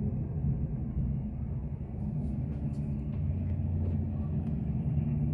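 Steady low rumble of distant airport noise, the drone of jet engines and traffic blended together.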